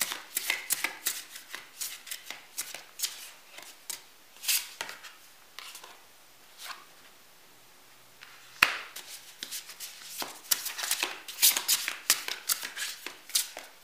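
A deck of tarot cards shuffled by hand: quick runs of crisp card flicks and slaps. There is a quieter pause of a few seconds in the middle, and then the shuffling picks up again.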